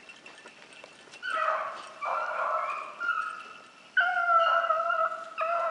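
Hound baying while trailing a rabbit: about five drawn-out, pitched calls in a row, starting about a second in.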